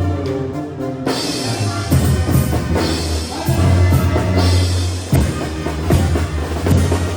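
Background music: a dramatic orchestral track with a deep held bass and heavy drum hits.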